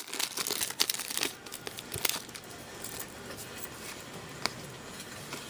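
A pack of trading cards being torn open by hand, the wrapper crinkling and crackling in irregular bursts for the first second or so. Then quieter handling with scattered small clicks as the cards come out.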